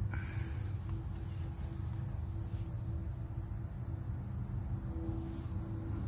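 Insects chirping steadily over a low background hum.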